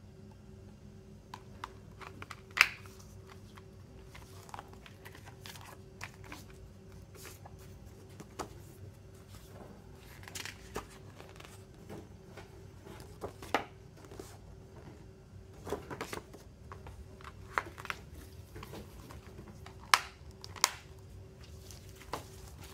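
Hands handling a Blu-ray disc, its clear plastic case and a paper photo booklet: scattered sharp clicks and taps with short plastic and paper rustles. A faint steady hum runs underneath.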